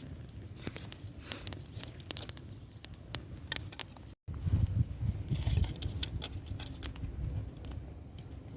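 Small campfire of freshly added wood crackling, with irregular sharp pops and snaps over a low rumble that gets louder after a brief dropout about four seconds in.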